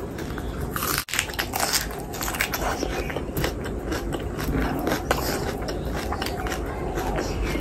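Close-miked chewing with wet, smacking mouth clicks: a person eating biryani and curry by hand. The sound drops out for an instant about a second in.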